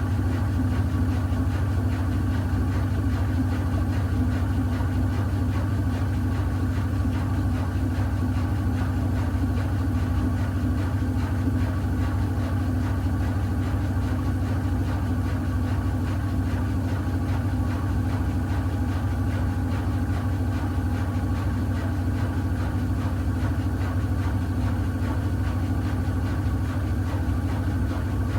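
Miele W1 Active WCA 030 washing machine with its ProfiEco motor, running with a steady, even hum that does not pause or change.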